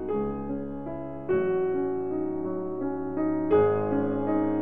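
Soft background piano music: slow, sustained notes and chords, with new chords struck about a second in and again near the end.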